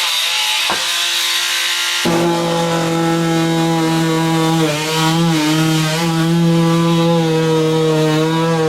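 Oscillating multi-tool with a saw blade cutting into a wall. It starts as a rasping scrape, then settles into a loud steady buzz whose pitch dips and wavers as the blade bites, cutting into wood behind the wall surface.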